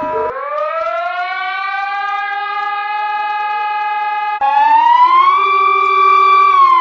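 Emergency alert siren tone: a loud wail with many overtones that glides up to a steady pitch and holds. About four and a half seconds in it breaks off and restarts higher, rising again to a plateau and starting to slide down near the end.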